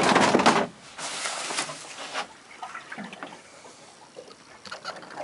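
Waves slapping and splashing against the hull of a small boat, a loud surge in the first second and another soon after, then lighter scattered slaps.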